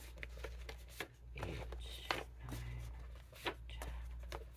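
Quiet handling noises at a table: a few soft clicks and rustles, the sharpest about two seconds in, over a steady low hum.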